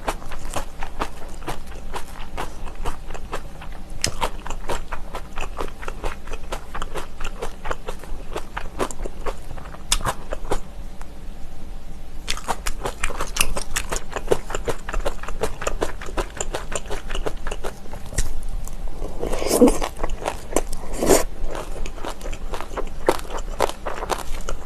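Close-miked eating: a person crunching and chewing kimchi and side dishes, a dense run of wet crackles and crisp bites. There are two louder mouth sounds a little before the end.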